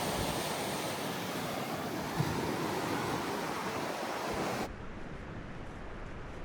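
Steady rush of fast-flowing glacial meltwater, with some wind on the microphone. About four and a half seconds in, the high hiss drops away abruptly and the rush carries on duller.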